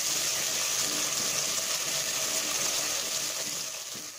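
Onion paste and ginger-garlic paste sizzling in hot oil in a nonstick pot, stirred with a wooden spatula. The hiss is steady and fades out near the end.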